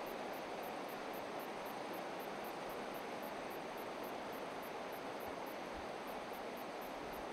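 Steady rush of a shallow river running over stones.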